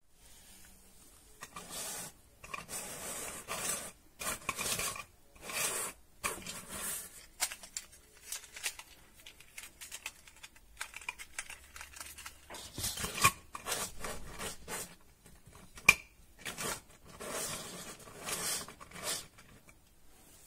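3D-printed plastic articulated dragon toy being handled: its jointed segments rattle and rub against each other in short scraping bursts, with a few sharp plastic clicks.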